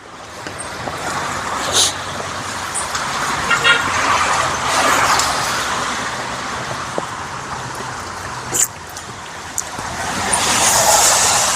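Road traffic passing: vehicle noise that swells and fades twice, with a few short clicks.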